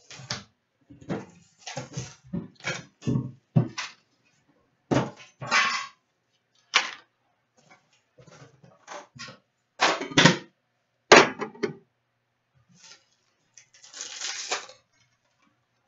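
A hobby box of trading cards and its packs being handled and opened by hand: an irregular run of short crinkles, clicks and knocks of cardboard and wrapper, with a longer crinkling rustle near the end.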